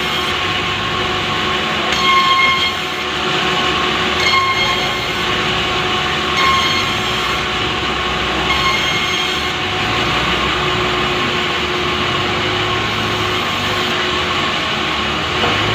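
A power saw running steadily as it rips lengthwise through a large Pulai log, with a brighter whine rising about every two seconds.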